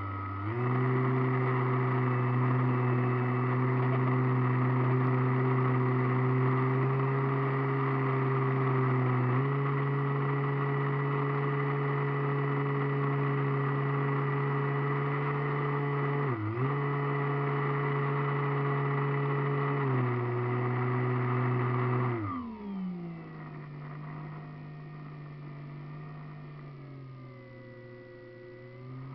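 Radio-controlled model airplane's motor and propeller heard from a camera on board, running at a steady high throttle. The pitch steps up about a third of the way in, dips for a moment past halfway and steps back down. About three-quarters of the way in the throttle comes back sharply, leaving a quieter, lower, wavering drone.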